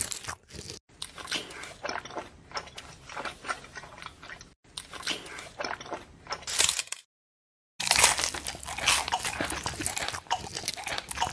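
Crunching and chewing sound effects: dense, crackly crunches cut off sharply by brief dead-silent gaps, the longest a little after the middle.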